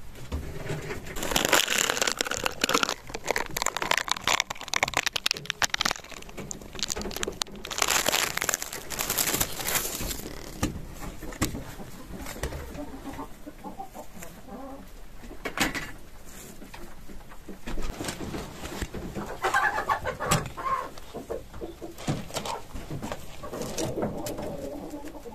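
Rustling and scraping around the rabbit hutches, loudest twice in the first ten seconds, with scattered clicks. Birds coo in the background, most clearly near the end.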